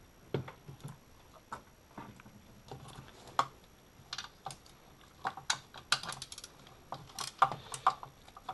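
A hand ratchet with a hex socket clicking as Allen-head bolts are loosened, in scattered single clicks and then quick runs of clicks, with light knocks of the tool on metal parts.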